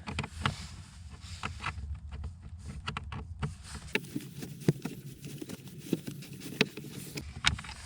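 Irregular sharp clicks and small knocks of a screwdriver working on the Torx T20 screws of a car's plastic dashboard panel, over a low steady hum.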